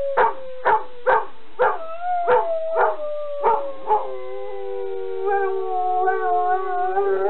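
Golden retriever howling: one long drawn-out howl that slowly falls in pitch, lifting briefly about two seconds in. Sharp knocks about twice a second sound alongside through the first half.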